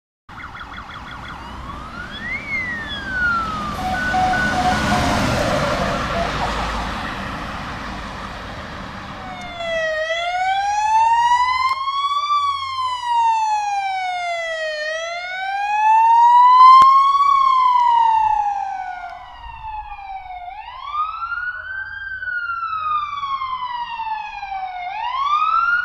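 Emergency-vehicle sirens drawing near along a street. After about ten seconds of traffic noise with one brief siren whoop, a siren wails in slow rising and falling sweeps, about two and a half seconds up and two and a half down. From about twenty seconds the pattern changes to quick swooping rises with slower falls.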